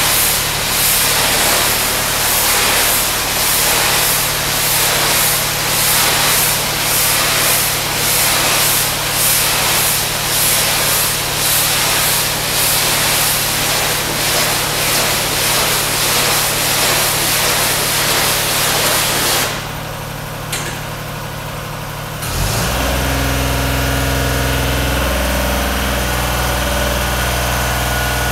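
Pressure washer spraying, a dense hiss that swells and fades in a regular rhythm over the steady hum of its engine. About 19 seconds in the spray stops and the engine runs on alone; a few seconds later its note changes and it runs louder and deeper.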